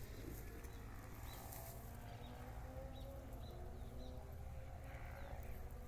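Faint outdoor ambience: a steady low rumble with a few short, high bird chirps scattered through it.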